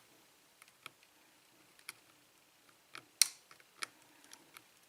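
Lock pick working the pins inside a Schlage pin-tumbler lock: scattered faint metallic clicks and ticks, a few per second, with one sharper click about three seconds in.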